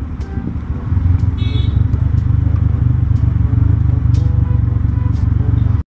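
Motorcycle engine running under way with road noise, heard from the bike itself, getting louder about a second in and then holding steady. A short high beep sounds about a second and a half in.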